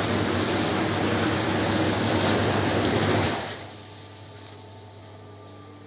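Whirlpool bath's hydromassage pump running, its jets churning the water with a rushing sound over a steady hum; it stops about three and a half seconds in, leaving a faint steady hum.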